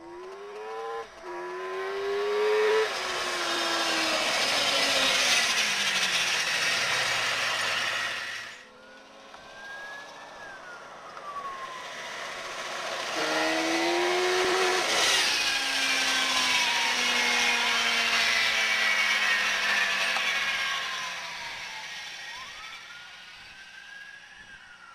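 Suzuki GSX-R750 inline-four motorcycle engine in a mini sand rail buggy accelerating hard past twice: its pitch climbs steeply as it revs up, then falls away slowly as it passes and pulls off, over a strong hiss of tyres throwing dirt. Between the runs the engine is heard briefly revving up and down at a distance.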